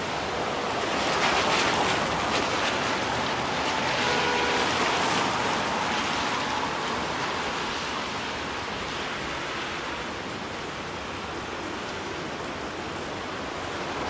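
Steady hiss of traffic on rain-soaked roads, a little louder in the first few seconds, with a faint brief tone about four seconds in.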